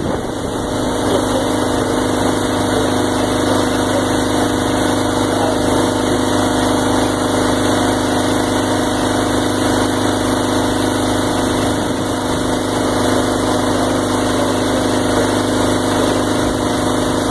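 Engine-driven transfer pump running steadily at one constant speed while it pumps liquid into a sprayer tank.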